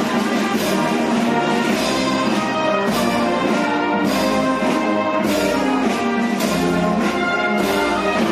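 Brass band playing a slow processional march, with held brass notes and a cymbal and drum stroke about once a second.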